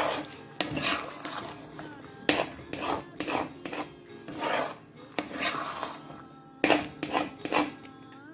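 A perforated metal spatula scrapes and slaps through thick, sticky apple halwa in a black kadai, about a dozen uneven strokes against the pan. The halwa is being stirred constantly over a low flame as it thickens.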